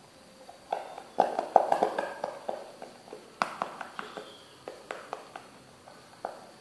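A small plastic hair-dye bottle being squeezed and worked over a plastic bowl: a run of irregular sharp taps and clicks, busiest about one to two seconds in, then thinning out to single clicks.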